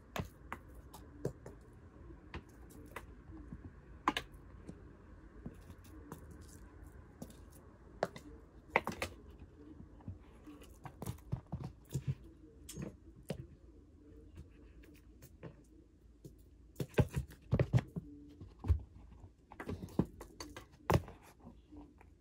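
Cats playing on carpet: irregular soft knocks, scratches and scuffles of paws pouncing and scrabbling, sparse at first and coming in quick flurries in the second half.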